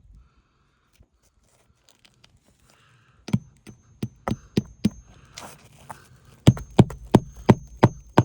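Hammer driving a roofing nail under a lifted asphalt shingle: two runs of quick, sharp hammer blows, about three a second, starting about three seconds in, with a high metallic ring between strikes.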